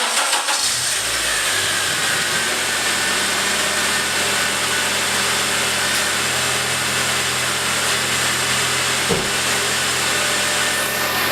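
Acura TSX engine starting up and settling into a steady idle, running on a newly fitted Continental Poly V drive belt. The belt squeal is gone.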